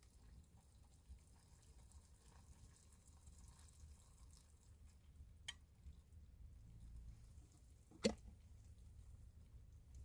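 Near silence with a low steady hum, broken by a faint tick about five and a half seconds in and a sharper single click about eight seconds in.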